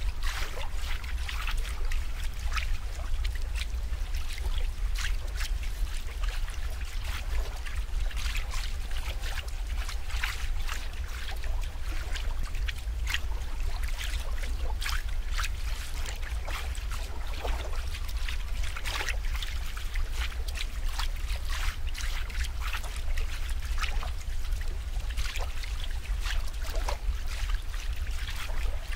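Water trickling and splashing in quick irregular spatters over a steady low rumble.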